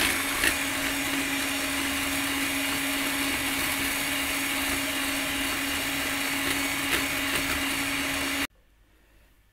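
Old electric hand mixer, at least 40 years old, whipping cream in a plastic mixing bowl, its motor running with a steady hum. It cuts off suddenly near the end as it is pulled from the socket: its switch is broken, so it runs whenever it is plugged in.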